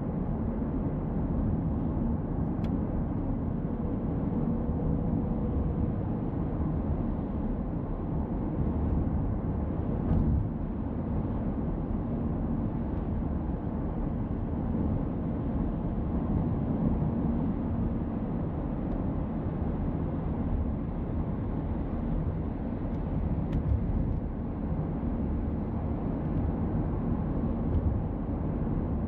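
Car driving along: a steady low rumble of road and engine noise heard from a dash camera inside the car.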